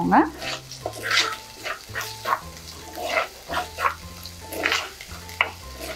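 A metal spoon stirring and scraping chopped shallots and green chillies frying in oil in a clay pot, in a series of short scrapes, over soft background music.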